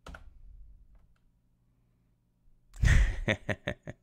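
A man's breathy exhale into a close microphone, then about three seconds in a short, loud burst of breathy laughter in about five quick pulses.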